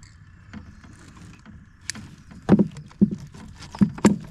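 A big blue catfish thrashing in the boat while being unhooked: four heavy thumps and knocks against the boat in the second half, after a quieter start.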